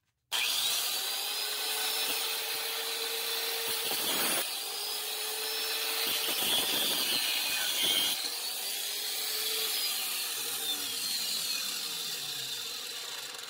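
Cordless power tool cutting through the excess length of a brass toilet closet bolt. It starts suddenly and runs continuously, its pitch sagging and recovering several times as it bites into the metal.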